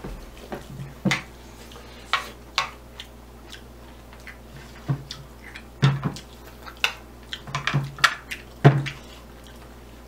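Chopsticks clicking and scraping against a nonstick frying pan as jajang rabokki noodles and rice cakes are picked up, with chewing sounds in between. The clicks come irregularly throughout.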